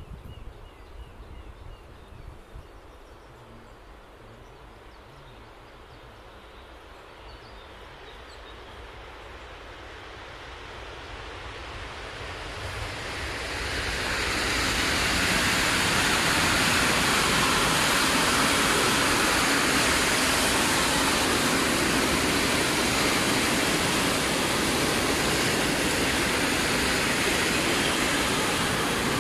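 ET41 electric freight locomotive hauling a train of open coal wagons, approaching and rolling past. The noise grows from about ten seconds in, then stays as a steady loud rolling rush while the wagons go by.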